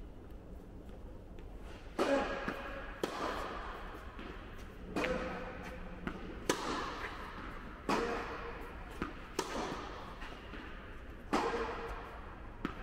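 Tennis rally with Head Pro balls: about seven sharp knocks of the ball on the strings and bouncing on the court, spaced one to two seconds apart and starting about two seconds in, each ringing on in the echo of a large indoor tennis hall.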